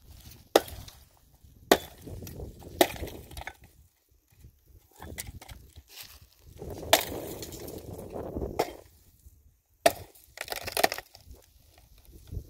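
Dry firewood being chopped and broken: about half a dozen sharp wooden cracks at irregular intervals, with a stretch of crunching and crackling of brush between them.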